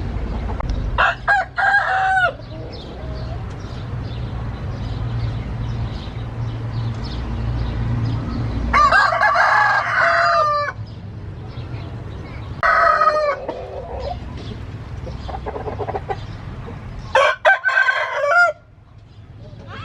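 Gamefowl roosters crowing, four crows each lasting one to two seconds, over a steady low rumble.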